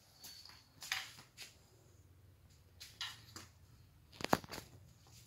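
A few scattered light clicks and knocks of tools and parts being handled, the loudest pair about four seconds in, over a faint low hum.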